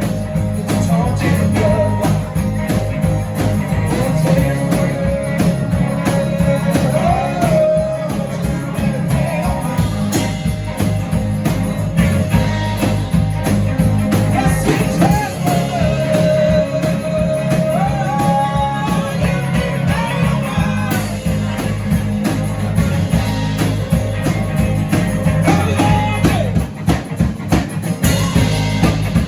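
A song performed live: a singing voice over a steady band accompaniment with guitar, playing without a break.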